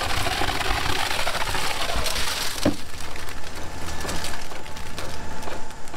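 Construction-site noise: a low steady drone under a broad rushing hiss, with a single knock nearly three seconds in.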